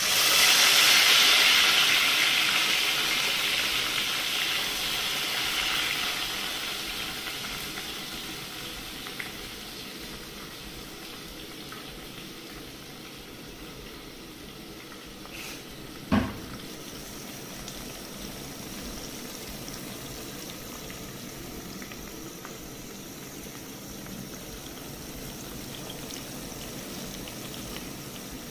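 Small dried fish hitting hot oil in an aluminium pot: a loud sizzle that fades over several seconds into steady frying and bubbling. One sharp knock about halfway through.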